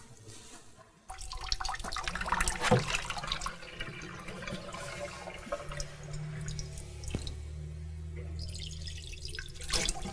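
Water running from a kitchen tap into a sink, starting about a second in, with a few sharp clinks.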